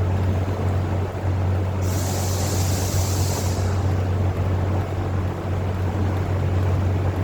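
A steady low machine hum with a rough, noisy running sound, and a burst of high hiss about two seconds in that lasts about a second and a half.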